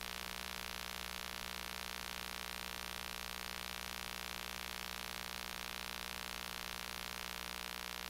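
Steady recording hiss with a constant electrical hum underneath; no speech comes through.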